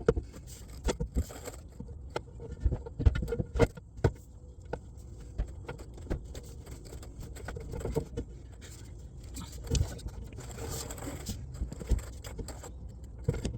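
Scattered metallic clinks, light knocks and scrapes at irregular intervals, from a drive shaft being worked back into a pickup's transmission output and its hardware handled. A low steady rumble runs underneath.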